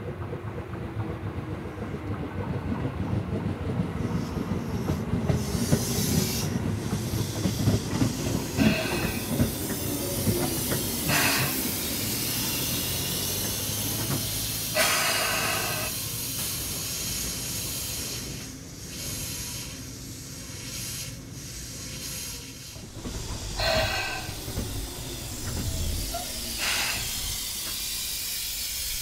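Tobu 10000 series electric train, field-chopper controlled with DC compound-wound motors, coming in with a falling motor tone under rail noise, then compressed air hissing in about six short bursts. Near the end the motor note rises again as the train starts to move.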